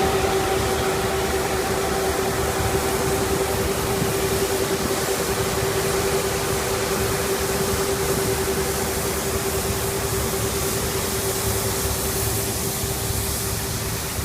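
Stone crusher running steadily, a continuous mechanical noise with a constant hum.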